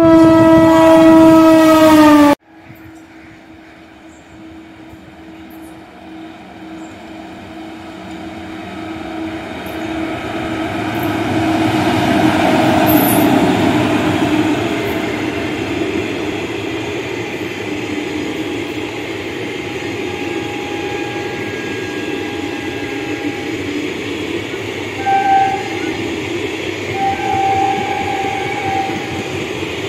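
A loud train horn blast ends abruptly about two seconds in. Then an Indian Railways WAP-4 electric locomotive hauling an express train approaches and passes at speed, its rumble building to a peak about twelve seconds in as the locomotive goes by, followed by the steady rolling and clatter of the passing coaches with a few short high tones near the end.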